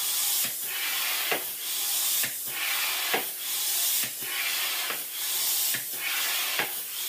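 Air pump being worked in steady strokes, about one a second, each stroke a loud hiss of air driven into a balloon that is being blown up until it bursts.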